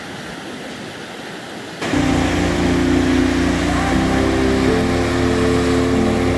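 Rushing surf growing slowly louder, then, about two seconds in, background music comes in suddenly: sustained chords over a deep bass, with a chord change about four seconds in.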